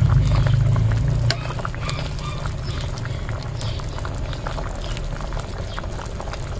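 Pot of soup bubbling at a boil, with faint clinks from a metal spoon stirring it. A low hum underneath cuts off abruptly with a click about a second in.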